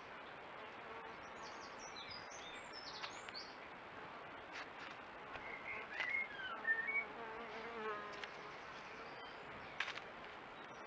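Steady background hiss from a trail camera's microphone, with a few faint short chirps. About six to eight seconds in, a brief cluster of louder chirps and a wavering buzz sounds close to the microphone.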